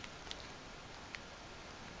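A few light ticks from a kitten batting and mouthing a metal coil-spring toy, the clearest a little past the middle, over a steady background hiss.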